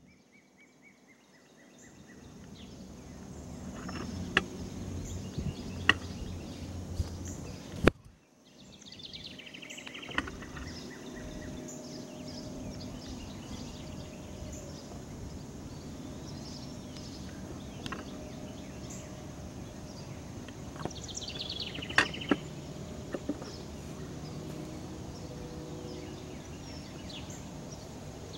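Outdoor garden ambience: a steady low background rumble with a faint high steady whine, broken twice by short runs of falling bird chirps, plus a few sharp clicks. It starts near silent and fades in about two seconds in.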